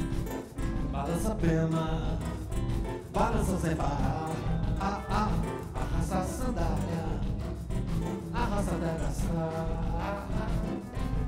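Live band playing an instrumental passage: electric and acoustic guitars over bass and a drum kit, with a gliding melodic lead line on top.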